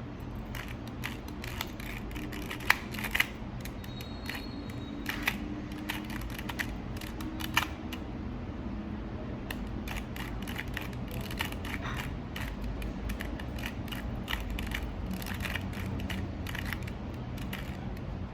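A 2x2 Rubik's cube being turned by hand: a run of quick, irregular plastic clicks and clacks as its layers are twisted, with a few louder clacks.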